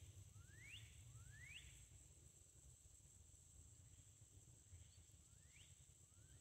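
Faint swamp ambience: a steady high insect drone, with a bird giving short rising whistled calls, three in the first two seconds and two more near the end.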